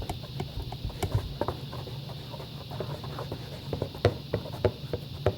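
A fluffy slime mixture of glue, shaving cream and Sta-Flo activator being stirred in a bowl with a mixing tool: irregular wet squelches and clicks, several a second, with a few sharper knocks of the tool against the bowl near the end.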